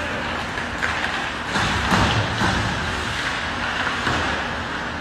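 Ice hockey game sounds in an echoing arena: skates and sticks on the ice under a steady wash of rink noise, with a couple of sharp knocks about one and two seconds in.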